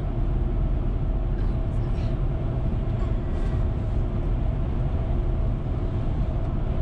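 Steady road and engine noise from inside a moving car's cabin: a low rumble of tyres and engine at cruising speed, with a steady hum over it.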